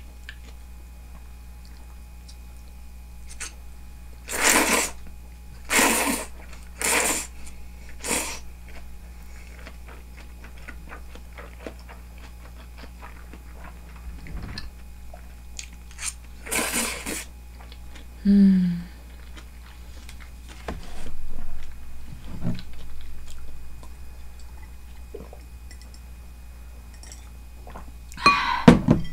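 Person slurping udon noodles: four loud slurps about a second apart early on, another later and one near the end, with quieter chewing in between.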